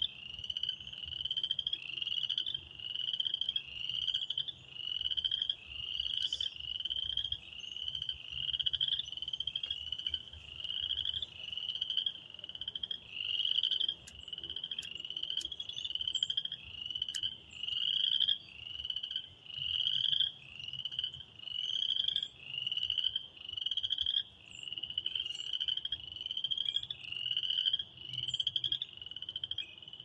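Spring peepers calling in chorus: short, high, upslurred peeps, the loudest repeating about once a second, with fainter peeps from other frogs overlapping.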